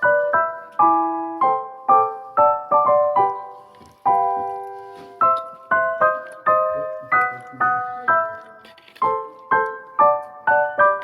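Background music: a solo piano playing a melody of single notes and small chords, each struck note fading before the next.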